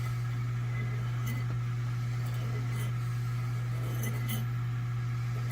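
A steady low hum throughout, with a few faint short scrapes and clicks as the head of a nylon screw is rubbed and spun against a flat file, about a second in, near the three-second mark and twice around four seconds.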